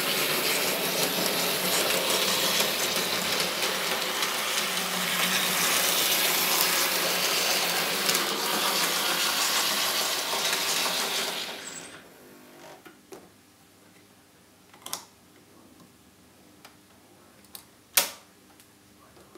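N scale model train running on its track, the small motor and wheels making a steady rattling whir that dies away about two-thirds of the way through as the train comes to a stop. A few sharp clicks follow, the loudest near the end.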